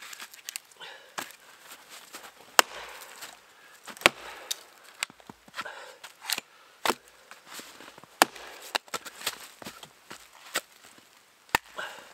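Axe splitting cedar kindling on a maple chopping block: about a dozen sharp chops at uneven intervals.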